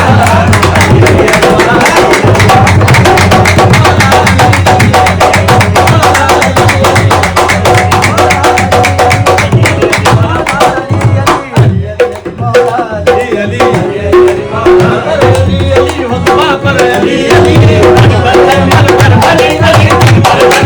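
Qawwali music without singing: rapid tabla drumming under a steady pitched melody. The music thins briefly about halfway through, then comes back in full.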